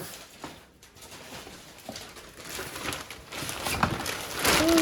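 Light clicks and rustling of kitchen items and packaging being handled, with a louder rustle about four and a half seconds in. A short voice sound that rises and then falls comes right at the end.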